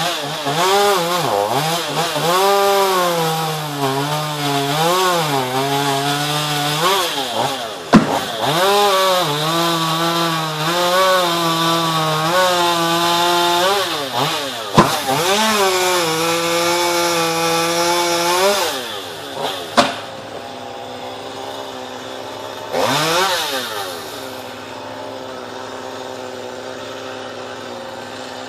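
Chainsaw cutting into a tree, its engine pitch repeatedly sagging under load and picking back up, with two sharp cracks partway through. After about 19 seconds it drops to a steady idle, revved once briefly a few seconds later.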